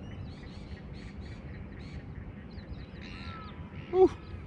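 Birds calling: faint short chirps throughout over a low steady rumble, and one loud, harsh call about four seconds in.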